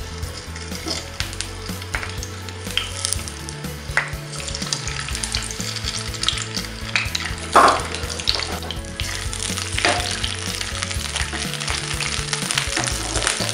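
Peeled boiled eggs frying in hot oil in a pan: a steady sizzle with frequent crackles as they are dropped in one by one, and one louder burst about halfway through.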